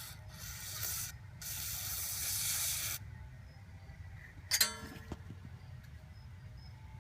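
Two hissing bursts of aerosol spray, the second longer, then a single sharp metallic clank with brief ringing.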